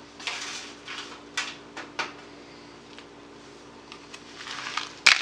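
A kitchen utensil scraping and knocking against a plastic food container and plate as food is packed in: a run of short clicks and scrapes, the loudest a sharp clack near the end, over a faint steady hum.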